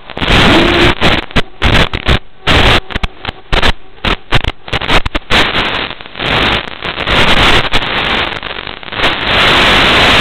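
Static hiss from an analog FPV video receiver, breaking into rapid choppy bursts as the quad's signal drops out, then settling into a steady hiss near the end.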